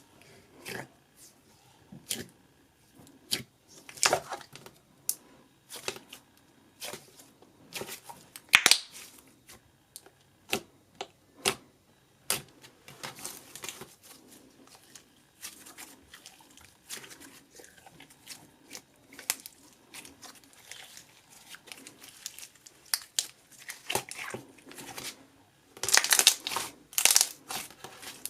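Slime being squished and stretched by hand: irregular sticky clicks, pops and crackles, with a dense run of louder ones near the end.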